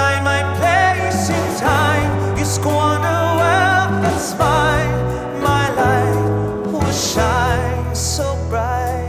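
Background music: a slow song with a wavering melody, sung or played, over sustained low bass notes.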